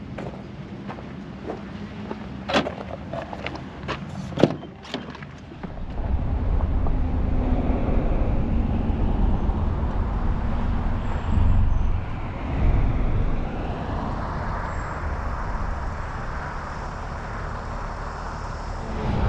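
A few sharp clicks and knocks as the van's door and driver's seat are handled, the loudest about four and a half seconds in. From about six seconds in, the van drives: a steady low rumble of engine and road noise heard from inside the cab.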